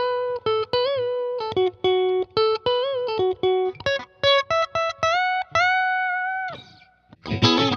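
S-style electric guitar playing a single-note melodic lead with small string bends, ending on a long held note. After a brief pause, a denser, louder chordal part starts near the end.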